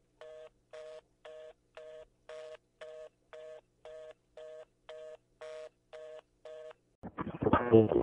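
Telephone fast busy (reorder) tone: short two-note beeps, about two a second, signalling that the call cannot be completed. About seven seconds in, the beeps stop and a sudden loud, harsh, distorted burst of sound breaks in.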